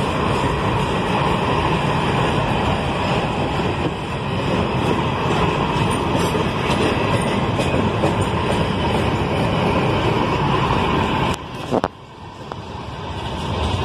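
Container wagons of a freight train rolling past at close range, a steady rumble and rattle of steel wheels on the rails. About eleven seconds in the sound drops away briefly, then builds back up as more wagons pass.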